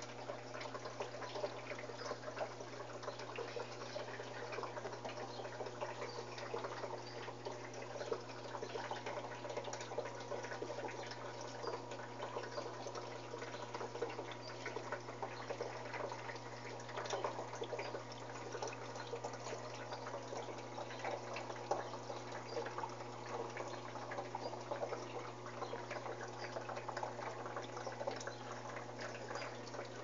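Electrolux 13 kg washing machine with water running and splashing inside, a steady watery noise with many small splashes over a steady low hum.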